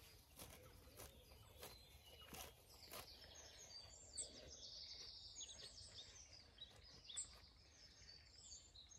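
Near silence outdoors: faint birdsong with scattered chirps, busiest around the middle, over a low rumble of outdoor background noise, with a few faint ticks in the first three seconds.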